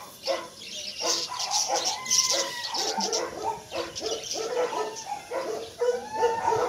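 Several young puppies whining and yelping: a dense run of short, high-pitched cries, one after another.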